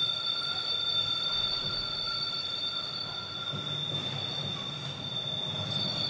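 Recorded train sound played over a theatre sound system: a steady, high-pitched squeal of steel wheels or brakes, several tones held together, over a low rumble.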